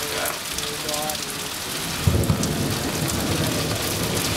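Thunderstorm rain falling steadily, with a crack and rumble of thunder breaking in about two seconds in and rolling on.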